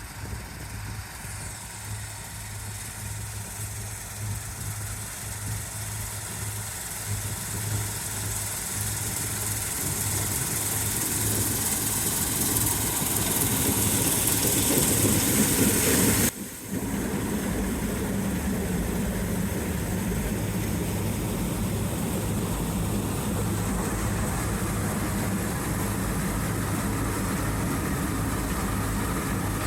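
New Holland twin-rotor combine running while harvesting soybeans: a steady engine drone under a rushing hiss that builds over the first half. The sound drops out suddenly for a moment about halfway through, then carries on steady.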